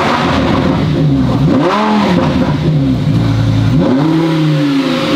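A car engine being revved: the pitch falls back from one rev, then climbs and drops twice more before cutting off suddenly at the end.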